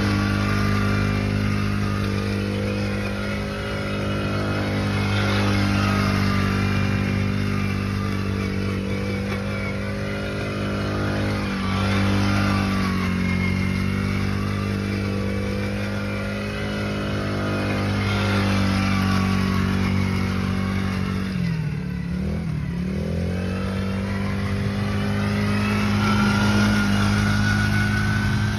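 Small ATV engines running: a steady engine close by, with a youth quad's engine rising and falling in pitch as it circles on sand. About three quarters of the way through, the engine pitch drops sharply and comes back up.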